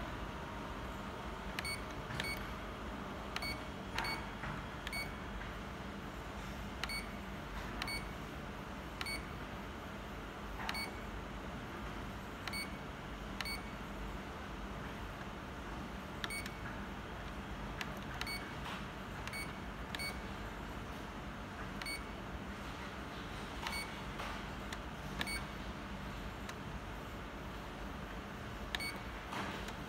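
Key-press beeps from a Ricoh C430/C435DN laser printer's control panel: about two dozen short, high-pitched beeps at irregular intervals, one for each press of the arrow and OK keys while stepping through the service-mode menu.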